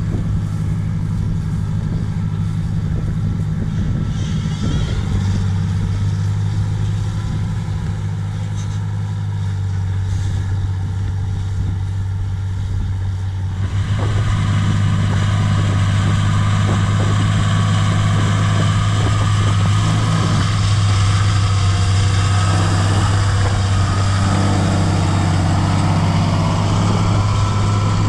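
John Deere 8100 tractor's six-cylinder diesel engine running steadily under load, pulling an eccentric disc harrow, with the discs scraping and rustling through the soil. About halfway through the sound turns louder and harsher.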